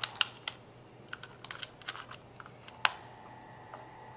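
Hard plastic clicks and taps as the receiver box cover on the Traxxas Slash chassis is pressed and fitted into place by hand. About a dozen sharp clicks, the loudest near the start and about three seconds in.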